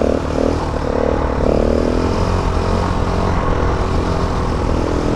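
Small stunt motorcycle engine running at raised revs, its pitch holding fairly steady with small wavers.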